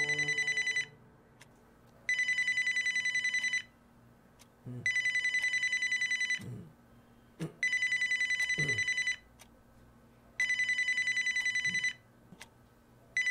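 Telephone bell ringing in long rings about a second and a half each, repeating roughly every three seconds, each ring a fast metallic trill. Soft low thuds come in the gaps between rings.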